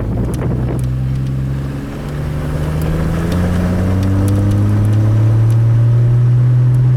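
2002 Chevrolet Trailblazer's inline-six engine accelerating from a standstill, its note climbing steadily, then dropping near the end as the automatic transmission shifts up. It pulls away without dying: the cylinder-3 misfire is cured.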